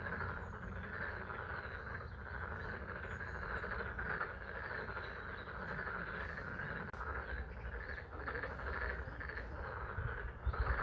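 A chorus of frogs calling continuously at a pond, with steady spring rain falling. A few low thumps come near the end.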